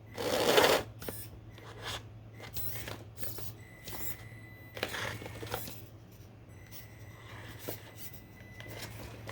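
A brief loud rushing noise, then a small RC crawler's electric motor whining faintly in short spells while its tires and chassis scrape and click over rocks at crawling speed.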